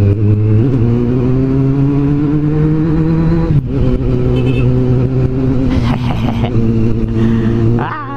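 Kawasaki Z750's inline-four engine pulling through a gear, its pitch rising slowly. About three and a half seconds in the pitch drops at a gear change, and the engine runs on steadily.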